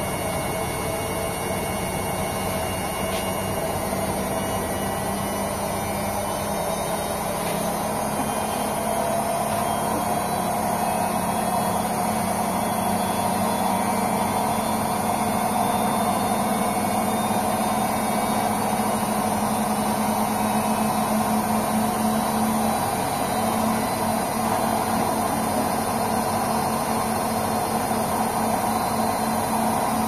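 Front-loading washing machines running, a steady motor hum with water and drum noise. The hum grows a little louder about ten seconds in and wavers near the end.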